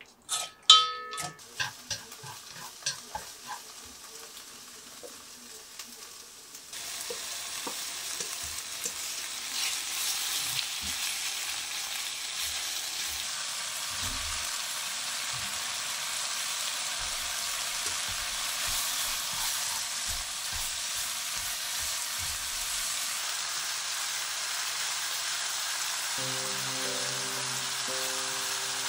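Chopsticks and a spoon clinking and scraping against a stainless steel bowl while mixing octopus in a spicy marinade. About seven seconds in, a steady sizzle starts as the octopus, pork belly and vegetables are stir-fried in a nonstick pan, with light clicks from the stirring.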